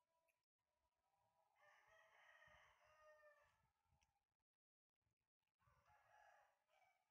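Near silence with two faint, drawn-out animal calls: a long one about a second and a half in, and a shorter one near the end.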